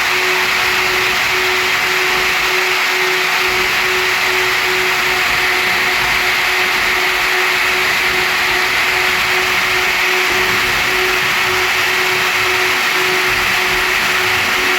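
CNC router spindle running steadily as it cuts a design into wood: a constant whine over an even cutting noise.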